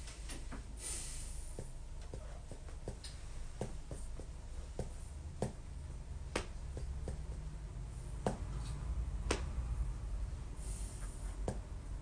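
Scattered light clicks and taps at irregular intervals, a few sharper than the rest, over a steady low room hum.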